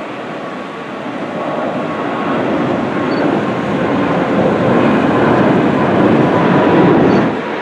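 Airbus A330 airliner's jet engines on the landing roll-out, heard from far off: a broad rushing noise that grows louder over several seconds and then drops off sharply near the end.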